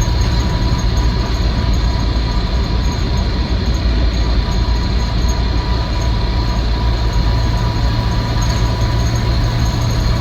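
Cab noise of a 1962 Land Rover Series IIa 109 on the move: the 2.25-litre four-cylinder petrol engine's steady drone, with road and body noise and a steady high whine from the drivetrain.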